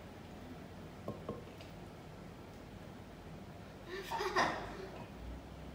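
Quiet room tone with two light clicks about a second in, then brief laughter about four seconds in.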